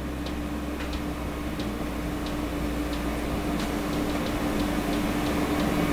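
Air fryer running as it preheats: a steady fan hum with a constant tone, slowly growing louder, and faint light ticks about twice a second.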